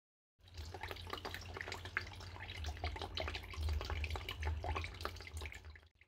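Indoor tabletop waterfall fountain running: water trickling and splashing into its pool with many small drips, over a low steady hum, starting about half a second in.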